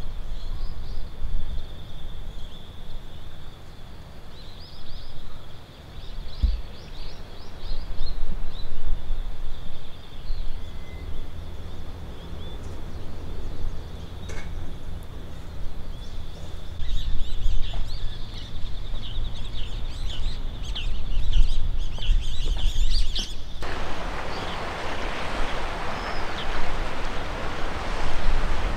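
Birds chirping over a steady high trill and a low rumble of wind on the microphone; about 24 seconds in it cuts suddenly to the steady wash of sea waves.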